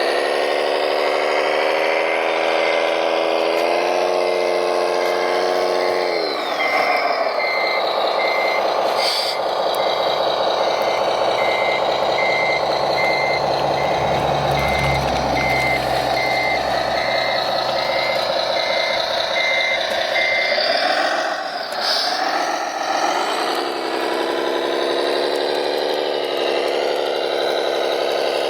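Radio-controlled truck's sound module playing a diesel truck engine, whose note drops about six seconds in, with a reversing beeper sounding steadily, about one and a half beeps a second, until the engine note shifts again near the end.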